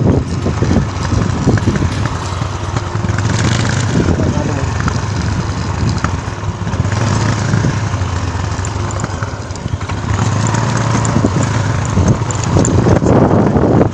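Motorcycle engine running steadily, a low hum with a rushing noise over it.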